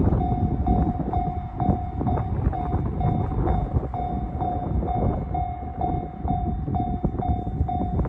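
Japanese level-crossing alarm ringing its electronic bell tone steadily, about two strikes a second, with a low rumble underneath.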